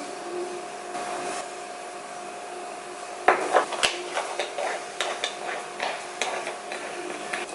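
A steady hum, then from about three seconds in a run of sharp clinks and knocks of hard objects, like dishes or utensils being handled.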